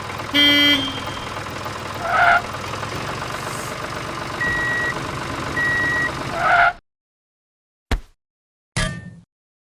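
Mini tractor engine running steadily, with a short horn toot about half a second in and two short beeps midway. The engine sound cuts off abruptly about seven seconds in, followed by a click and a brief burst of noise.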